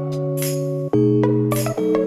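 Background music: sustained keyboard chords that change about a second in, over a steady beat of light high percussion.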